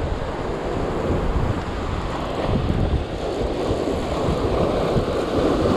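Wind buffeting the microphone over surf washing across shore rocks, with a wave surging in louder about four to five seconds in.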